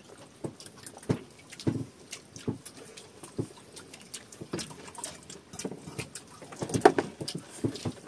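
Scattered light taps and knocks at an irregular pace, with a louder knock about seven seconds in.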